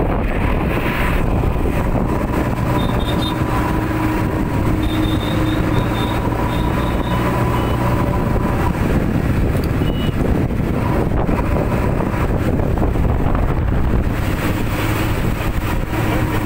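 Backhoe loader's diesel engine running steadily at road speed, heard from inside its cab.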